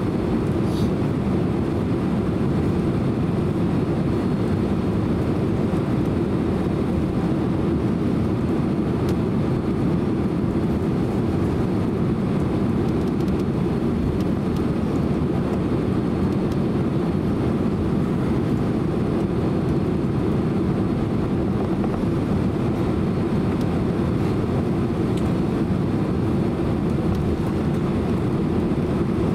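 Steady low cabin rumble of a Boeing 767-300 airliner taxiing, heard from inside the passenger cabin, even and unchanging throughout.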